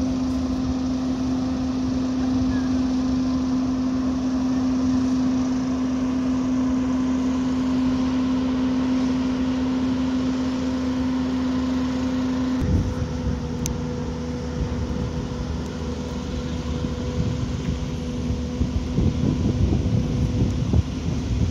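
Heavy-haul truck and its tilting blade-lifter trailer carrying a wind-turbine blade, their machinery running with a steady droning hum. A little over halfway through, the strong tone cuts out with a bump and a quieter, lower hum carries on; wind buffets the microphone near the end.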